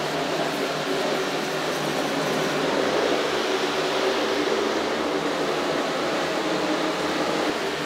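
Steady fan-like rushing noise of running shop equipment, with no hammer blows.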